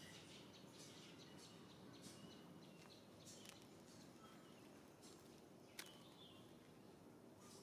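Near silence: faint outdoor background hum with a few faint high chirps and one sharp click nearly six seconds in.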